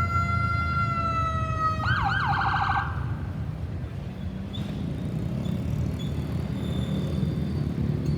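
Ambulance electronic siren holding a steady high wail, switching about two seconds in to a rapid warble for about a second, then cutting off. After that only the low rumble of traffic and engines remains.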